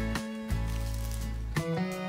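Instrumental background music of sustained notes, changing chord about half a second in and again near the end.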